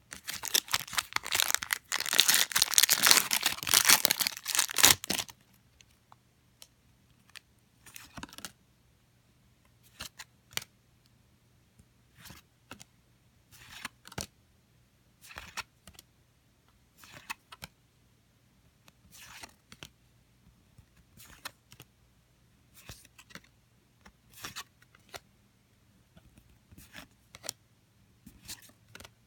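Booster pack wrapper torn open and crinkled for about five seconds, then a string of short, soft card-handling sounds every second or two as the trading cards are slid through the hand one at a time.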